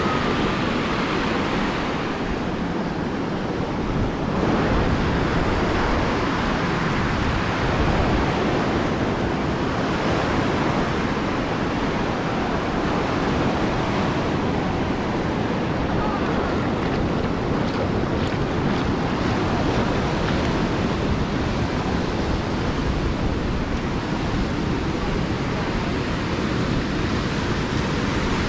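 Ocean surf breaking on a beach, a steady, even wash of waves.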